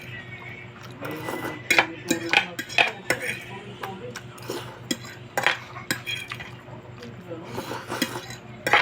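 Eating utensils clinking and scraping against a plate or bowl of noodles, in irregular sharp clicks.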